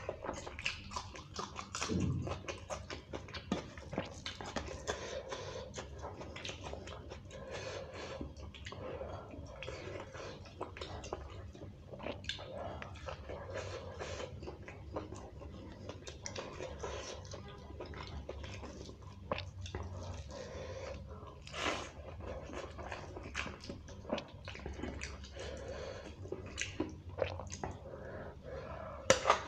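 Close-miked eating: a person chewing mouthfuls of rice and beef curry, with a steady stream of small wet mouth smacks and clicks over a faint low hum.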